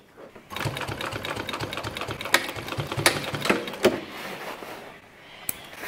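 Walking-foot sewing machine stitching through canvas with a rapid, even clatter of needle strokes and a few sharper knocks, then winding down and stopping about four seconds in.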